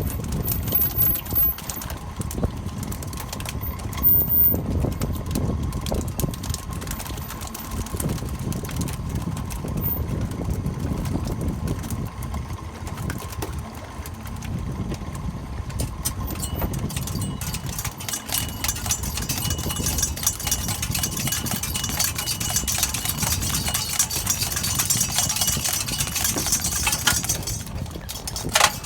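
A boat engine running at idle, a steady low drone, with a high hiss building up over the last ten seconds or so.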